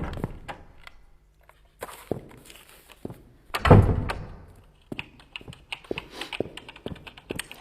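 A dull thunk, followed from about halfway on by a run of quick, light computer-keyboard typing clicks.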